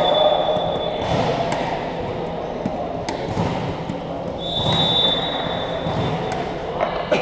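Referee's whistle blown in a large, echoing sports hall: one steady blast ends about a second in and another sounds for about a second and a half from about four and a half seconds in, signalling play between volleyball rallies. Between the blasts a volleyball thumps a few times on the court floor, over background hall chatter.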